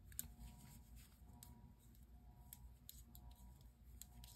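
Faint, irregular clicks of metal knitting needles tapping together as stitches are worked, over quiet room tone.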